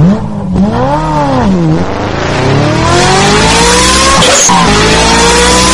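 Yamaha RX100's two-stroke single-cylinder engine revving: a quick rev up and back down about a second in, then longer climbs in pitch that drop back sharply, twice.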